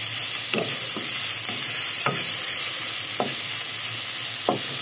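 Minced pork sizzling in hot oil in a nonstick wok, with a steady frying hiss. A wooden spatula scrapes and stirs the meat across the pan about six times at uneven intervals.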